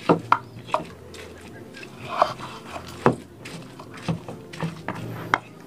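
Kitchen utensils knocking and tapping irregularly, about eight sharp strikes with rubbing between them, alongside faint low voices.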